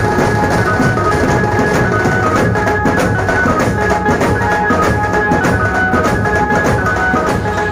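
Street band music: several large bass drums and snare drums beaten with sticks in a fast, dense rhythm, with a high melody line on top.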